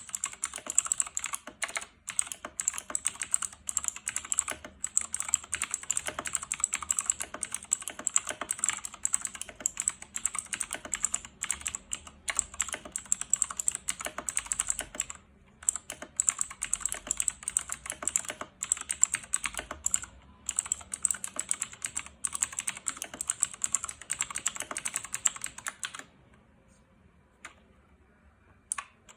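Fast typing on a Razer BlackWidow RZ03-0286 mechanical keyboard, which has lubed stabilizers and pudding keycaps. The key clicks run in a rapid, dense stream, break off briefly about halfway through, and stop a few seconds before the end, after which only a few keystrokes come.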